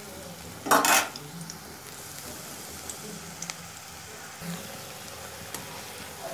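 Coriander-leaf fritters deep-frying in hot oil in a wok, sizzling steadily, with a brief louder burst about a second in.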